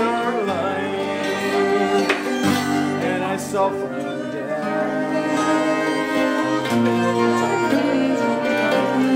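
Live acoustic folk band playing a slow instrumental passage: flute and fiddle carry the melody over sustained low accompaniment notes that change every couple of seconds.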